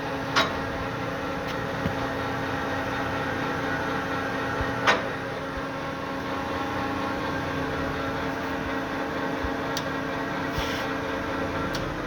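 LeBlond Makino 15" x 50" engine lathe running with a steady whine from its spindle drive and gearing. Two sharp metallic clunks, about half a second and about five seconds in, with a few lighter clicks, as the gear levers are shifted.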